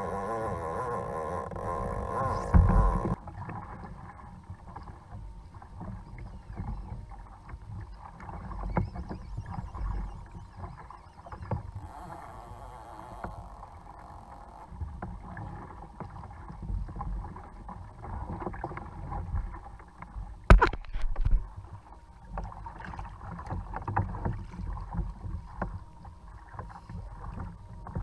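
Ocean water sloshing and slapping irregularly against a Hobie plastic fishing kayak's hull as it rocks on the swell. A wavering howl-like tone fills the first three seconds and cuts off abruptly, and there is one sharp knock about two-thirds of the way through.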